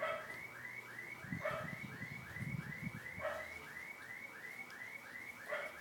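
A steady, high chirp repeating about three to four times a second, with a few faint short sounds mixed in.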